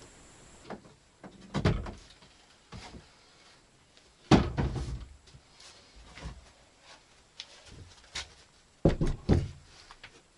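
Irregular knocks and thuds, a few loud ones with lighter clicks and taps between, in a small room.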